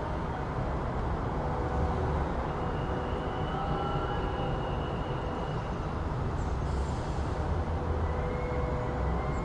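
City street traffic ambience: a steady low rumble of vehicles, with faint high tones drifting in and out.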